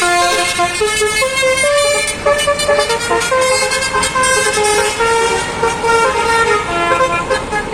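Bus's telolet basuri musical horn playing a tune of quick stepped notes, over road noise.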